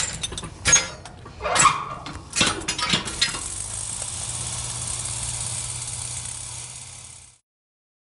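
An 80 kg drop mass is released on a drop tower and caught by a 120 cm nylon sling in a fall-factor-2 test. A sharp clank is followed by a heavy impact under a second later, then several more metallic knocks. A steady hiss runs after that and cuts off suddenly.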